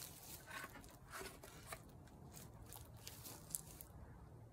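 Small carving hatchet slicing and shaving wood in a string of short, faint strokes, with one sharper click about three and a half seconds in.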